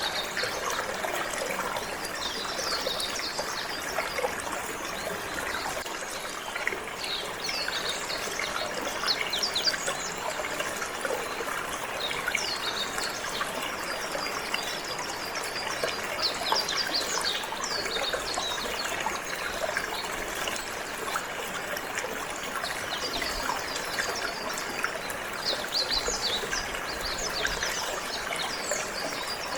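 Water trickling and flowing steadily, with a canary singing over it in runs of quick, high chirps and trills separated by short pauses.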